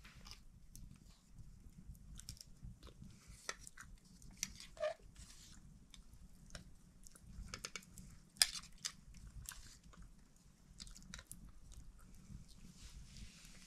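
Wood fire crackling in a stone fireplace: faint, irregular pops and snaps, with one sharp, louder pop about eight seconds in.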